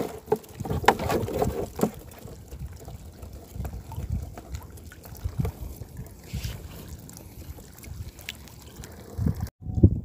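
Handling noise of a wire-framed net crab trap: scattered knocks and rattles as it is lifted and turned, over low wind buffeting on the microphone.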